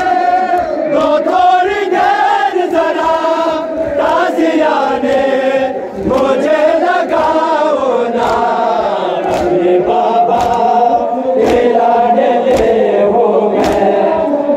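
A group of mourners chanting an Urdu nauha, a Muharram lament, together in chorus. Sharp beats come about once a second through the second half.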